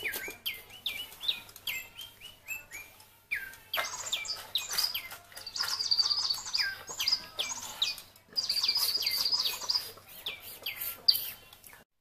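DigiBirds electronic toy birds chirping and singing to each other. Quick chirps that slide down in pitch alternate with two longer, high, trilling warbles.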